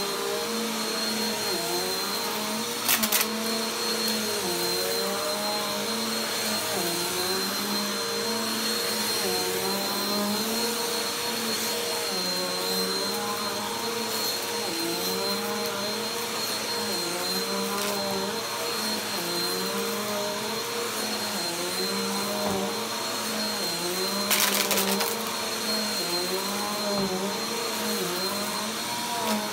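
Bagless upright vacuum cleaner running on carpet as it is pushed back and forth, its motor hum dipping in pitch about every two seconds with each stroke. Two brief crackling bursts, about three seconds in and again near the end, as debris crunches up the nozzle.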